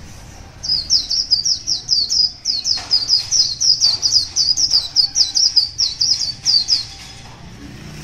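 White-eye singing a long, fast run of sharp, high chirping notes, about four a second, starting just under a second in and stopping about a second before the end.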